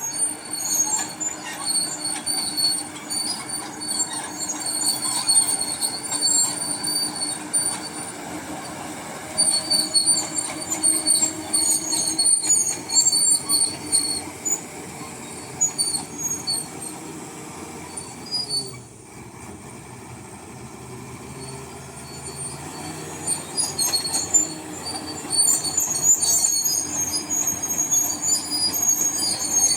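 Crawler bulldozer working, its running gear giving high-pitched squeals that come and go over the machine's rough running noise. It eases off for a few seconds past the middle, then the squealing returns.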